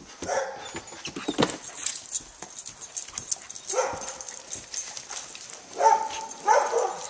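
A dog barking in short excited calls while playing chase: one near the start, one about four seconds in, and two close together near the end, amid scattered clicks and knocks.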